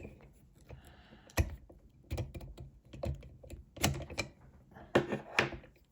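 Irregular sharp clicks and knocks of a Yale euro cylinder lock and its picking tools being handled and taken out, several loud clicks spread across a few seconds.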